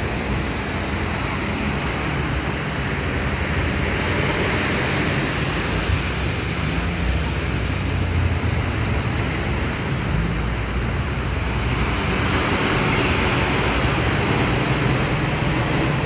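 Steady rushing noise of wind and distant surf, with wind buffeting the microphone as a low, uneven rumble. It swells slightly in the middle and again near the end.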